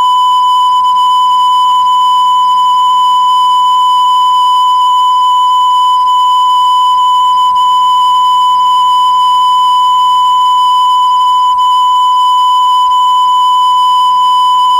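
Electronic test tone: one loud, unbroken high-pitched beep held at a single steady pitch on the VHS tape's soundtrack.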